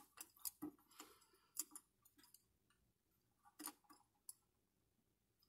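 Near silence with a few faint, scattered clicks and rustles: the sticks of a small yarn-bound stick raft knocking lightly together as a knot is pulled tight around them.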